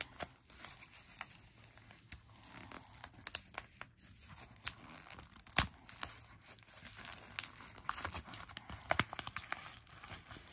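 Packaging of a sticker subscription kit being unwrapped and handled: paper or plastic tearing and crinkling in irregular rustles and light clicks, with one sharper click about halfway through.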